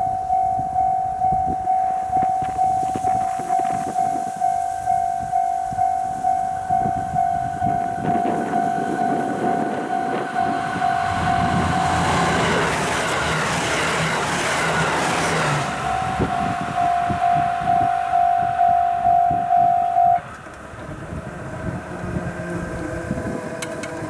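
Japanese level-crossing warning bell ringing steadily at nearly two strikes a second while a KiHa 85 diesel railcar train approaches and passes. Its engines and wheels swell to a rumble that drowns the bell about halfway through. The bell then rings on and stops abruptly near the end.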